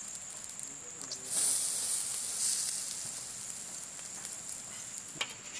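Glowing charcoal hissing and sizzling as liquid is splashed onto it from a bottle, putting out the flames. The hiss starts suddenly about a second in and fades away over the next few seconds.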